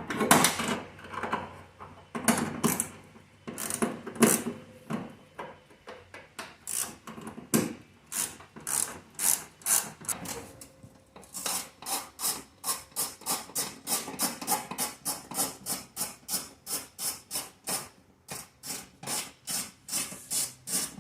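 Hand scraping or rubbing strokes against a surface. They are uneven at first, then settle about halfway through into a steady rhythm of about two to three strokes a second.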